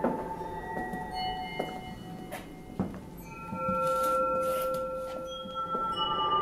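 Background music of sustained, overlapping bell-like tones, with a few soft knocks.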